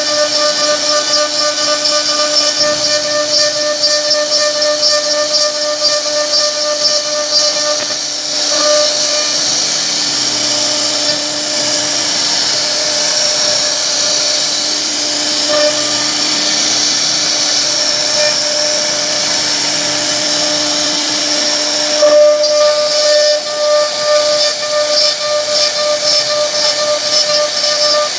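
CNC router spindle running at speed and cutting wood: a steady, high-pitched whine over a hiss of cutting, its tone shifting twice.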